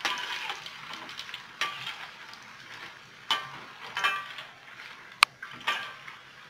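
Batter-coated mango pieces sizzling in hot oil in a steel wok as a wire-mesh strainer lifts them out, the hiss fading away. The strainer and a metal spatula knock and clink against the wok several times, with one sharp click about five seconds in.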